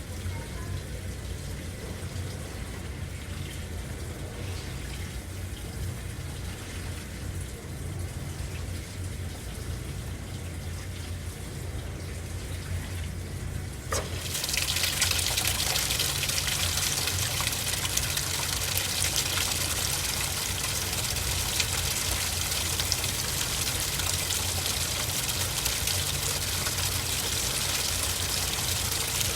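AQUA MCW-C70A coin-operated 7 kg washing machine taking in water, over a steady low hum. About halfway through the water suddenly comes in much harder, a loud steady rush of water into the drum under strong pressure.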